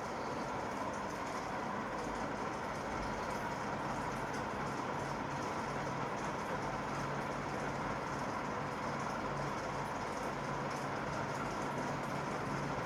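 National F560A1 ceiling fan running steadily: an even rush of moving air with a faint motor hum under it.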